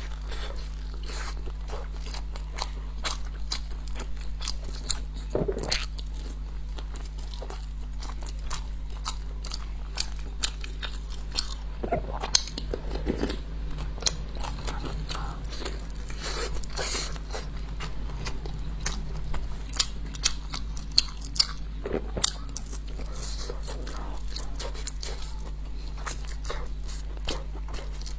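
Close-miked chewing and biting of food: wet crackles and crunches many times a second, over a steady low electrical hum.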